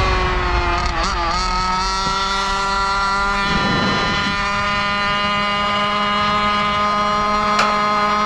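Zenoah G290RC two-stroke engine with a DDM Racing Dominator expansion pipe, driving a Goped Sport scooter at a steady cruising speed. Its pitch dips briefly about a second in, then holds steady.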